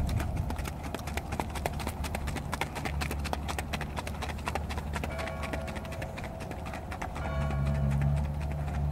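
Icelandic horse's hooves striking a track in quick, even hoofbeats as it is ridden at a brisk gait. Background music with long held notes comes in about halfway through.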